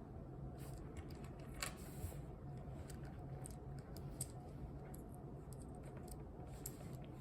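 Small plastic clicks and taps at irregular times as the pieces of a mini Rubik's cube are handled and fitted back together, over a faint steady low hum.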